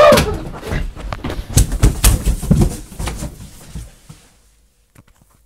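A person falling down a carpeted wooden staircase: an irregular run of heavy thumps and bumps for about four seconds, stopping as the body comes to rest at the bottom.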